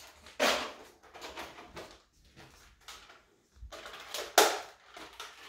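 Nerf foam-dart blaster being handled: two short sharp mechanical sounds, about half a second and four and a half seconds in, with quieter clicks and rustling between.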